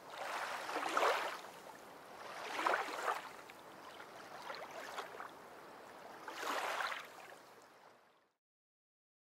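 Rushing, surging water noise that swells and fades about every two seconds, then cuts off abruptly near the end.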